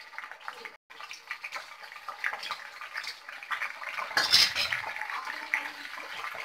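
Raw banana slices deep-frying in hot oil, hissing and crackling hard as spoonfuls of salted water hit the oil and spatter. There is a louder burst about four seconds in.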